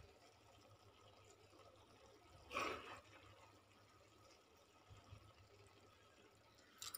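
Near silence, broken by one short soft scrape and rustle about two and a half seconds in: a spatula turning cooked cabbage and peas sabzi in a kadhai.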